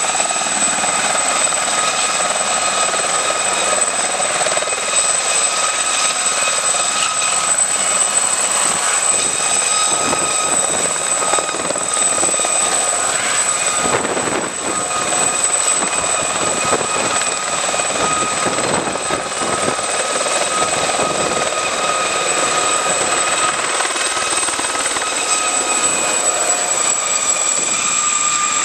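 Aérospatiale SA 342 Gazelle helicopter lifting off, hovering low and making a close low pass: a steady high turbine whine over the rotor's dense wash, with its Fenestron ducted tail rotor.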